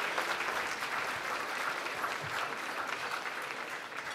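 Audience applauding: dense clapping from a large crowd that slowly dies down.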